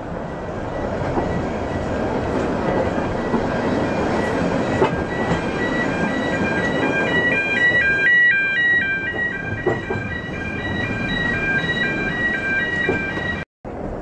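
A road level crossing's electronic warning sounder plays a repeating jingle of high tones stepping between several pitches, starting about four seconds in; the crossing's sound is an unusual one. Under it runs the steady rumble and clatter of a narrow-gauge railway carriage rolling along the track.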